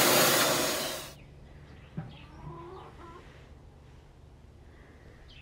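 Vacuum nozzle sucking damp wood pellets out of a pellet grill's hopper, a loud even hiss that cuts off about a second in. After that only faint short calls and a single light click are heard.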